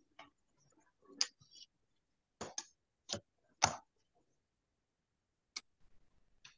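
Irregular sharp clicks, about eight of them spread over several seconds, the loudest about three and a half seconds in.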